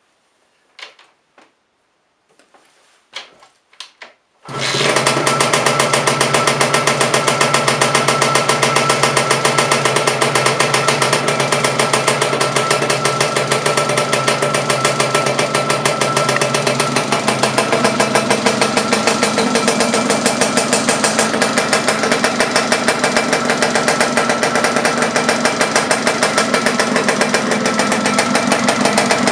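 Rebuilt Zündapp KS 125 water-cooled two-stroke engine of a Laverda LB 125 being started for the first time after its rebuild: a few short knocks, then about four and a half seconds in it catches and keeps running steadily with a fast, even firing rhythm.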